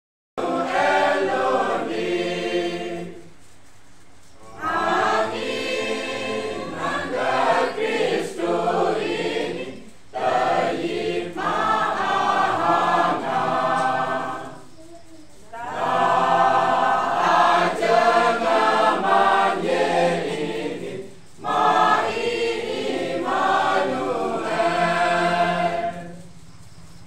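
Mixed choir of men and women singing a Christmas carol, in phrases separated by a few short breaks.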